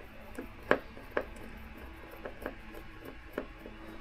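Scattered light clicks and knocks of hand tools and fasteners against motorcycle parts while screws are being removed, the two loudest about a second in, fainter ones later.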